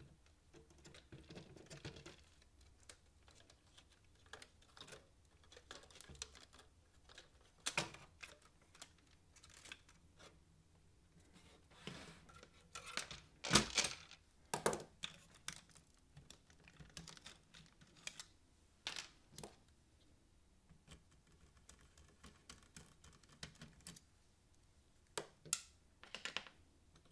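Scattered clicks and knocks of plastic and metal parts being handled as a Philips DCC 900 cassette deck is taken apart and its tape transport lifted out of the chassis. A cluster of louder knocks comes about halfway through.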